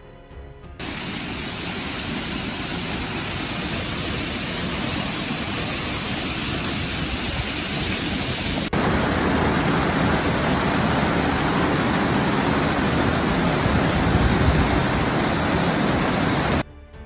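Heavy hail pelting streets, roofs and parked cars: a dense, steady din of ice hitting hard surfaces. It starts just under a second in, jumps a little louder about halfway through as a second recording follows, and stops shortly before the end.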